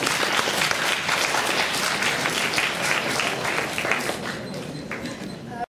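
Audience applauding: a dense patter of many people clapping that thins a little near the end and then cuts off suddenly.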